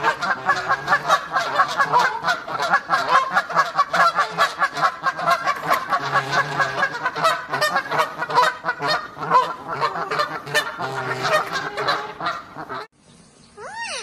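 A family of Canada geese with goslings calling: a dense, rapid run of short honks and calls. It cuts off sharply about a second before the end, leaving a quiet stretch with a single rising and falling bird whistle.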